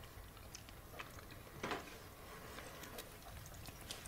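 Quiet room tone at a dinner table, with a few faint clicks of cutlery on plates, the most distinct about halfway through.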